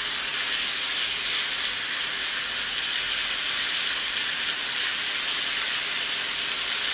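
Raw chicken pieces just added to hot oil in a skillet, sizzling with a steady, even hiss.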